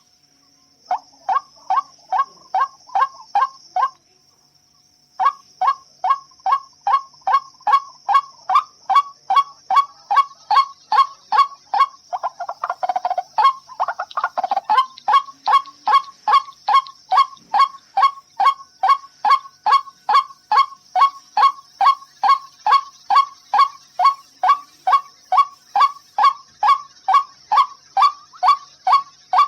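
White-breasted waterhen (ruak-ruak) giving its monotonous repeated call: short honking notes about two or three a second, with a pause about four seconds in and a few lower, rougher notes around the middle.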